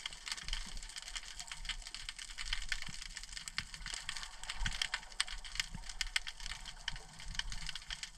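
Underwater crackle heard through a camera's waterproof housing: a dense, irregular patter of tiny clicks from the rocky seabed, like that made by snapping shrimp, over a faint low rumble of water movement.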